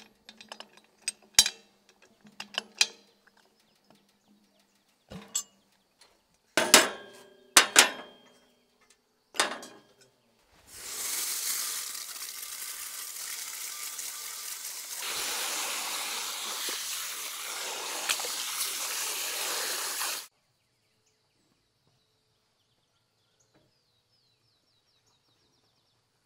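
Several sharp metallic clanks as the cast-aluminium lid and screw clamp of an Afghan kazan pressure cooker are handled. Then, about eleven seconds in, water running from a garden hose for about ten seconds, cutting off suddenly.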